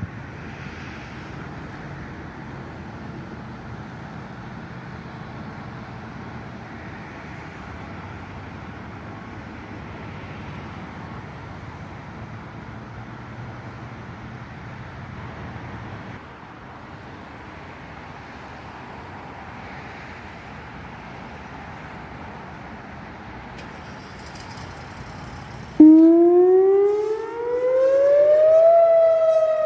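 Steady background noise, then about 26 seconds in a tornado warning siren starts suddenly and loudly, its note winding up in pitch for about three seconds before levelling off. The siren is sounding for a test.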